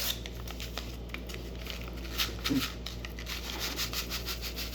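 A packet of dry onion soup mix rustling and crackling as the mix is shaken out into a bowl, with a fast run of light crackles in the second half.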